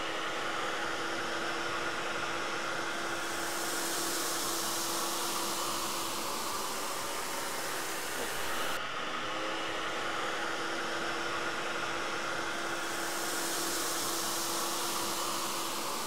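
Miele Triflex HX1 cordless stick vacuum running steadily while pushed over a thick-pile rug: a steady motor hum under an airy suction hiss. The hiss grows stronger a few seconds in, and the sound breaks off briefly and starts again near the middle.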